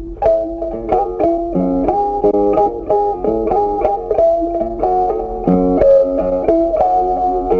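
Background music: a melody of quick, sharply struck notes, tagged as plucked guitar.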